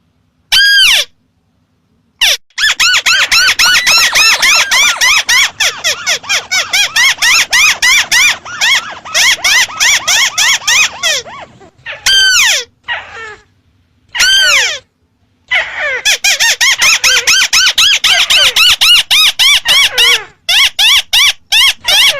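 Crake (burung tikusan) call played as a bird lure: a fast run of arching, whinnying notes, about five or six a second. About twelve seconds in, the run breaks for two single long falling calls, then picks up again.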